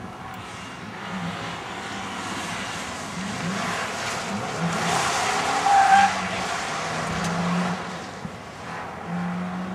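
Subaru Legacy wagon driven hard through an autocross cone course, its engine and tyre noise swelling as it passes and fading away. The tyres squeal briefly about six seconds in, at the loudest point.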